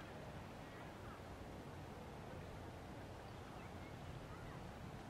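Faint outdoor ambience: a steady low rumble and hiss, with a few short, faint bird chirps.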